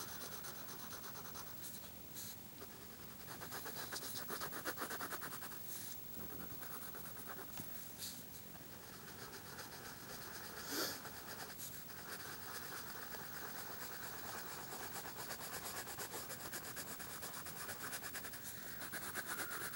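Crayola crayon scribbling on paper in quick, continuous back-and-forth strokes as an area is darkened in, with a brief knock about eleven seconds in.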